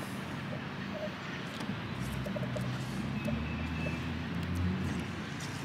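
Low engine rumble of a motor vehicle that swells a few seconds in and eases off, with a few faint light taps.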